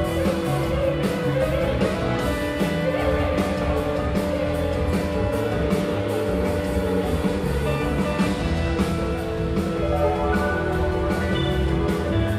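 Live rock band playing a jam passage with electric guitar, a drum kit with cymbals and keyboards, with no singing.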